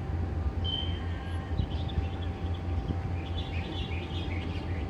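Small birds chirping in short, high bursts, a brief call about half a second in and a busier run of chirps in the last two seconds, over a steady low rumble.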